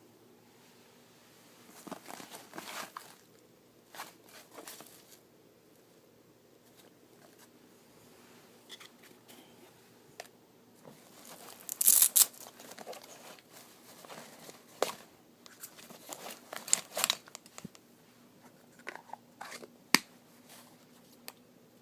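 Things being handled: irregular rustling and crinkling with occasional clicks. The loudest rustle comes about twelve seconds in, and there is a sharp click near the end.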